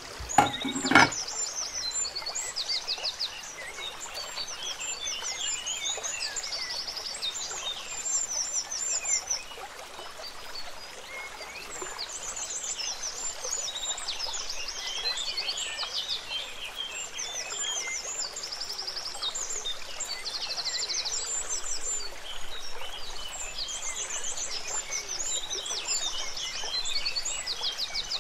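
A chorus of small birds chirping and trilling, many short high calls overlapping throughout, with two sharp knocks about a second in.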